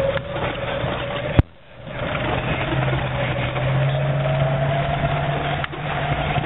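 1990 Jeep Cherokee's 4.0-litre straight-six running as the Jeep creeps along in four-wheel drive, heard from inside the cabin, with a whine that rises slowly in pitch. About a second and a half in there is a sharp click, then the sound drops out for about half a second.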